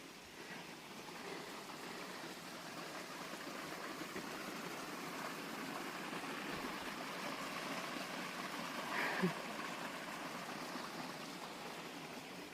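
Stream water rushing over rocks, a steady hiss that grows louder toward the middle and eases a little near the end. A short louder sound stands out about nine seconds in.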